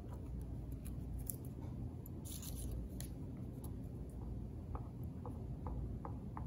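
Faint rustling of paper and popcorn being handled over a low room hum. About two-thirds of the way in, a run of short squeaks starts, about three a second, as a plastic Elmer's Glue-All bottle is squeezed to put down dots of white glue.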